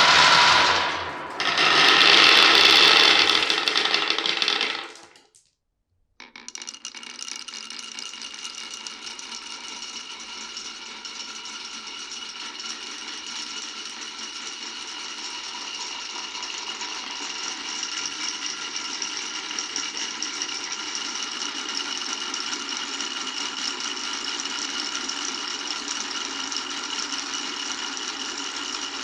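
Glass marbles rolling and rattling along a wooden marble run, a steady clatter that grows slightly louder over the last twenty seconds. It follows a loud burst of noise lasting about five seconds and a second of silence.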